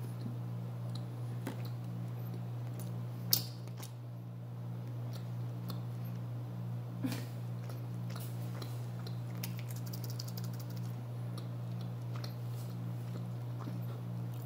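Close-up chewing with the mouth closed: soft wet smacks and small clicks, the sharpest about three seconds in and a quick run of fine ticks near the ten-second mark, over a steady low hum.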